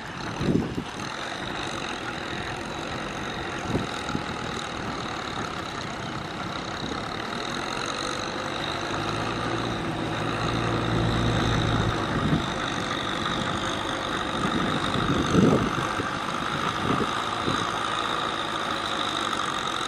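Farm tractor's diesel engine running steadily as it drags a levelling blade through flooded paddy mud. The low rumble grows louder around the middle, and a few brief clunks stand out, the loudest about three quarters of the way through.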